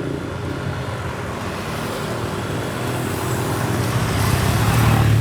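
Road traffic: a motor vehicle's engine running, growing louder near the end as it passes close, then starting to fade.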